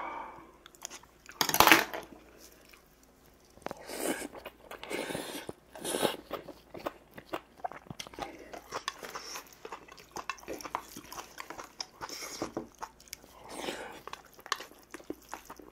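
Close-up chewing and munching of mouthfuls of food, with crunching and wet mouth sounds. A sharp clack about a second and a half in is the loudest sound, and smaller clicks recur throughout.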